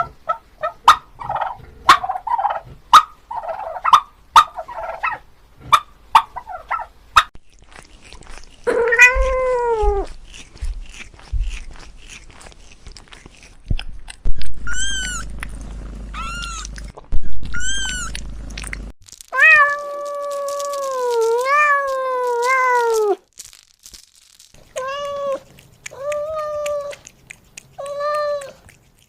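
Cats meowing: one falling meow, then a run of high, thin kitten-like mews, a long wavering meow, and four short meows near the end. The first several seconds hold a fowl's rapid burst calls over sharp clicks.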